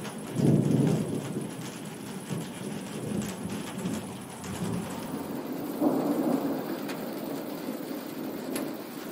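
Thunder over steady rain: one roll of thunder starts suddenly about half a second in and dies away over a couple of seconds, and a second roll comes about six seconds in.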